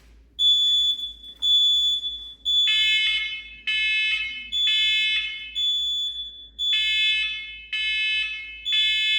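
Smoke alarms going off: a high, piercing beep pulses about once a second. About three seconds in, a second alarm joins, beeping in step at several lower pitches.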